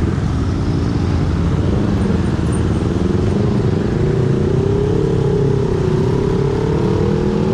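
Dense motorcycle and car traffic pulling away close by: many small engines running together, with one engine note rising gradually in the second half.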